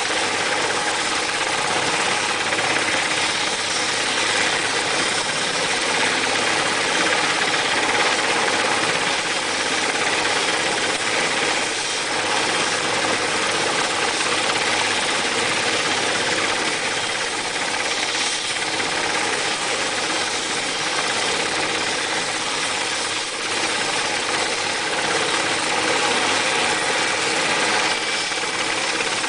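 Sikorsky S-61 helicopter running on the ground, its twin turboshaft engines and turning main rotor making a loud, steady noise.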